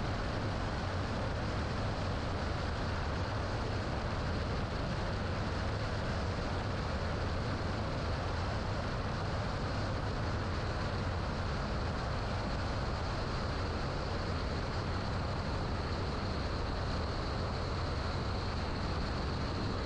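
Steady drone of a Piper Archer PA-28-180's four-cylinder Lycoming engine and propeller heard inside the cabin in level cruise, even and unchanging throughout.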